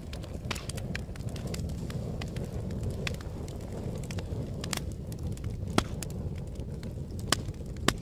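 Wood fire burning with a steady low rumble and scattered sharp crackles and pops, with a few louder snaps near the end.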